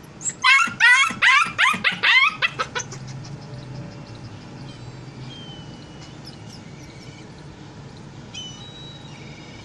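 A two-month-old Kuchi (Afghan shepherd dog) puppy giving a quick run of about ten high-pitched yips over two and a half seconds, starting just after the opening, then falling quiet.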